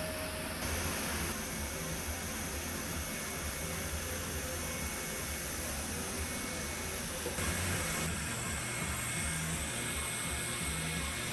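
Steady hiss with a low hum, the background noise of an operating room; a faint steady high tone joins about two-thirds of the way through.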